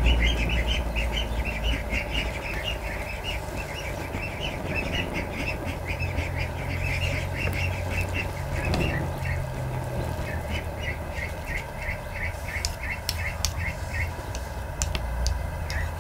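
Young ducklings peeping, a quick run of short high calls about three or four a second that thins out near the end, over a steady low rumble.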